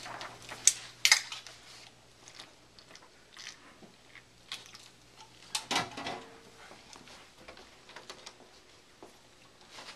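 A slim aluminium drink can being cracked open, two sharp metallic clicks about a second apart near the start, followed by quieter handling and a short cluster of knocks and clatter around six seconds in as it is drunk from.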